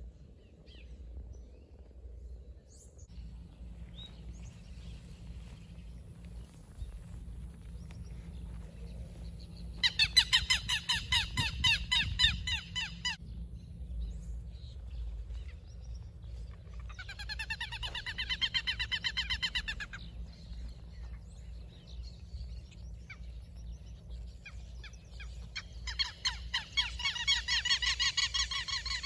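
Southern lapwings calling: three bouts of rapid repeated notes, each lasting about three seconds, the last near the end.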